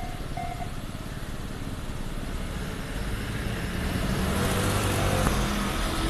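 Japanese railway crossing bell ringing about twice a second, stopping about half a second in as the barriers lift. Cars then drive over the crossing, their engines and tyres getting louder.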